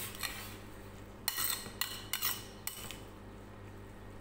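Metal spoon scraping and clinking against a glass mixing bowl while stirring rice mixed with yogurt. The sound comes in a few short bursts over the first three seconds, the loudest about a second and a half in, then stops, leaving a low steady hum.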